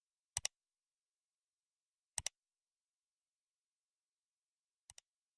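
Three quick double clicks about two seconds apart, the last pair fainter, each pair two sharp ticks in fast succession.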